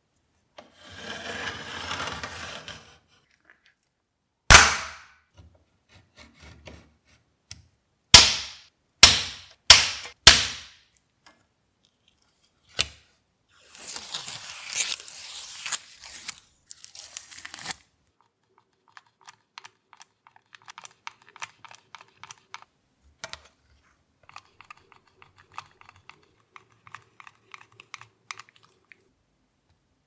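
Thin clear acrylic sheet being cut by hand: a couple of seconds of scraping, then one sharp crack about four and a half seconds in and four more in quick succession between eight and ten seconds, as the sheet is snapped into pieces. Then the protective film is peeled off a small acrylic piece with a crackling tear, followed by faint scattered clicks of the pieces being handled.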